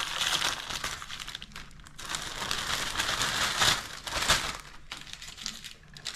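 A thin plastic bag crinkling and rustling as it is handled, while pieces of crisp baked cake layer (Napoleon cake pastry) are pushed into it and crack. It is loudest in a few sharp rustles about four seconds in.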